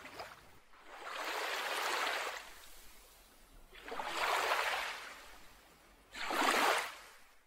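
Ocean waves washing in three times, each a rush that swells and fades, the last one starting suddenly near the end.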